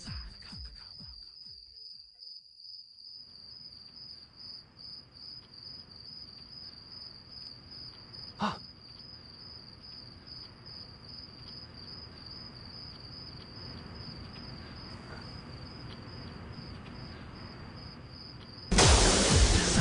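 A cricket chirping in a steady, high, fast-pulsing trill, with one sharp click about eight and a half seconds in. Loud music with a beat cuts in near the end.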